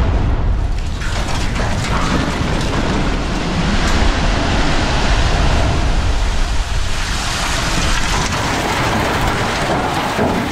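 Concrete cooling tower collapsing in a demolition: a long, loud, continuous rumble and crash of falling concrete as the dust cloud sweeps in, dying away near the end.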